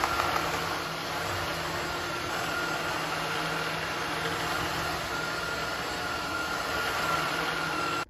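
Philips SpeedPro Aqua Plus cordless stick vacuum running steadily on its first (lowest) power mode as its lit floor head is pushed over laminate: a steady rush of air with a high whine and a low hum. It cuts off abruptly at the end.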